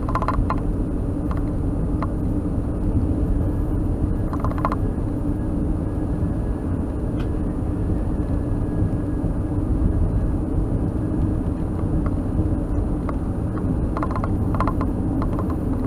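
A car driving on an unpaved gravel road, heard from inside the cabin: a steady rumble of tyres and engine, with short bursts of rattling clicks near the start, about four and a half seconds in, and near the end.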